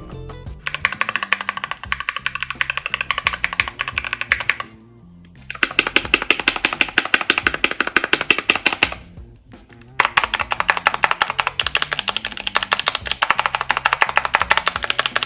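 Fast typing on an 87-key mechanical keyboard with Gateron Red linear switches: three runs of rapid keystrokes, broken by short pauses about 5 and 9.5 seconds in. Background music plays underneath.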